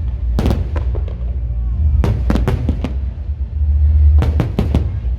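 Fireworks going off in quick volleys of sharp bangs, three clusters in a row, over a steady low rumble.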